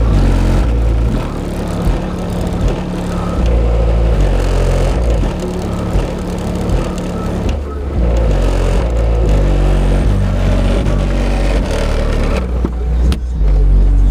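Two DD Audio 2512 12-inch car subwoofers, driven by a Hifonics BRZ 1200.1 amplifier, playing a very loud, deep bass line, the low notes stepping from pitch to pitch.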